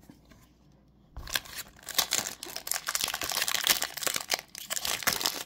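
Foil Pokémon card booster pack being torn open and crinkled by hand, starting about a second in and going on as a dense crackle of foil.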